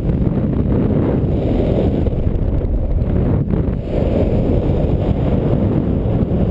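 Wind buffeting the microphone of a camera on a paraglider pilot in flight: a loud, steady low rumble of airflow.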